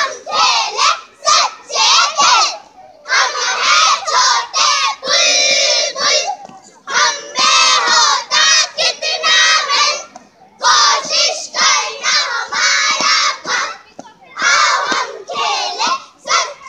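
A group of young girls loudly chanting a song in unison, in phrases of about three seconds with short breaks between them.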